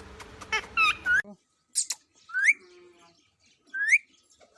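Green ringneck parakeet (rose-ringed parakeet) giving short, sharply rising whistled calls: a quick run of them about a second in, then single calls around the middle and near the end.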